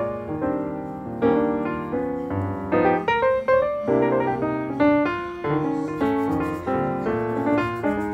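Background piano music: a run of struck notes and chords.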